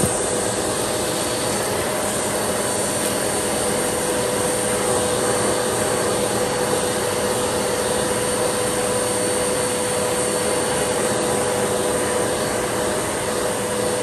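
MOOSOO U1400-PLUS 1400 W upright vacuum cleaner running steadily, its hose nozzle sucking on carpet: an even rush of air with a steady whine over it.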